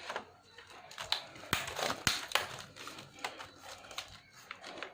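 Small screws being driven into an Asus X45A laptop's plastic case during reassembly: scattered sharp clicks and ticks with light scraping and rustling, the loudest clicks about one and a half to two and a half seconds in.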